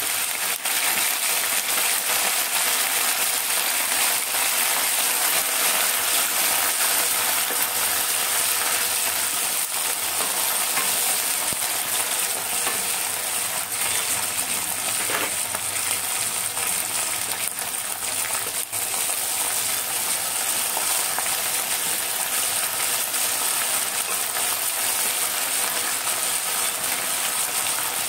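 Fresh coriander leaves sizzling steadily in hot oil in a pan, with a wooden spatula stirring through them.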